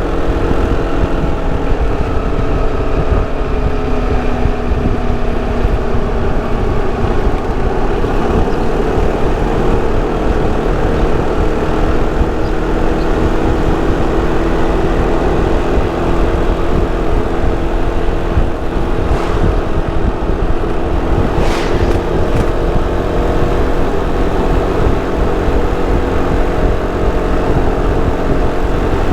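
Sym Cruisym 300 scooter's single-cylinder engine and stock exhaust running at a steady cruise. The pitch eases down slightly about a second in and then holds, over a steady low rush of wind and road noise.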